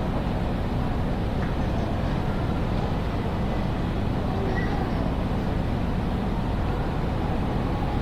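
Steady background ambience of a large railway station concourse: an even low rumble with faint, scattered distant voices.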